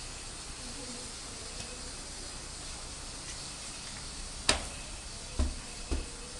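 Steady hiss of a steel gas tandoor's burner with its flame turned low, with three sharp knocks about four and a half seconds in, the first the loudest.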